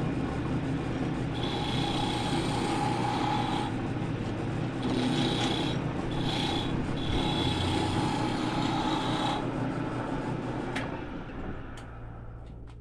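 Wood lathe running, with something pressed against the spinning wooden workpiece and rubbing it in several passes, each pass adding a whistling tone. It fades away near the end.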